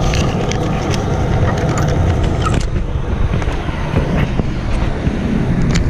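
Motor vehicle engine running with a steady low rumble, with scattered clicks and rattles over it.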